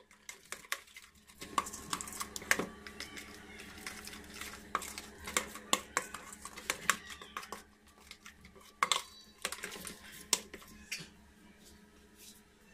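A metal spoon stirring a thick spice paste in a stainless steel bowl, clinking and scraping against the metal in irregular sharp clicks that thin out near the end.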